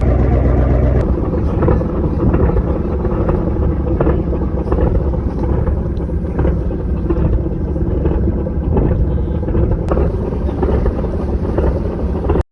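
A motor vehicle engine running steadily under heavy wind buffeting the microphone; it starts abruptly and cuts off suddenly at the end.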